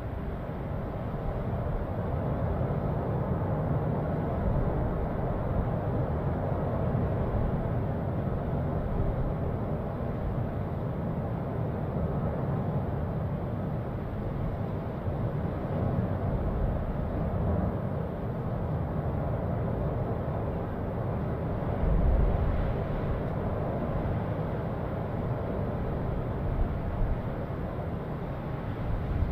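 Cumbre Vieja volcano erupting: a continuous deep rumble from the active vent, steady throughout, with a brief louder low surge about three quarters of the way through.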